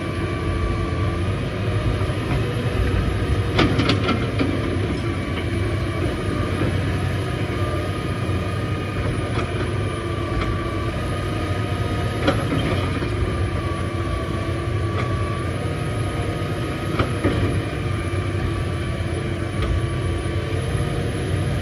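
Hydraulic excavators digging dirt: diesel engines running steadily with a low rumble and a steady high whine over it, and a few metal clanks, the loudest about four seconds in.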